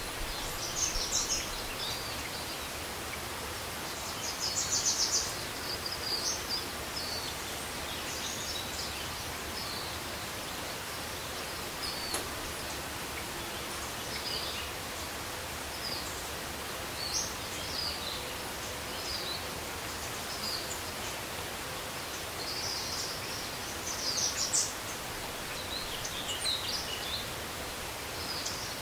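Steady outdoor background hiss with short high-pitched bird chirps scattered through it, bunched about five seconds in and again near the end.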